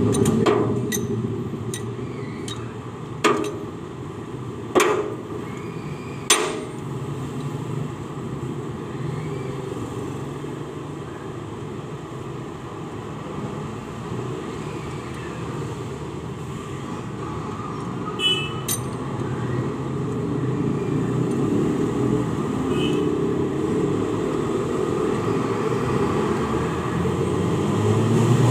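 Sharp metallic clinks of a hand wrench or socket on cylinder head bolts as the head is tightened down, a handful spaced over the first seven seconds and two more close together about two-thirds of the way in. A steady low rumble runs underneath.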